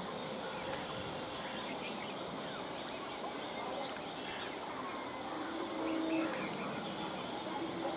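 Birds chirping over steady outdoor background noise, with many short calls scattered throughout.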